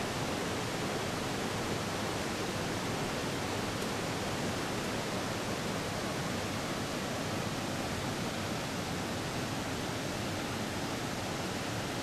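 Steady, even rush of a mountain river running over rocks and rapids in a gorge.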